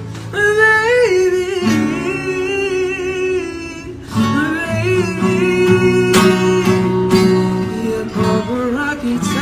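A man singing to his own acoustic guitar, chords played under a wavering vocal line.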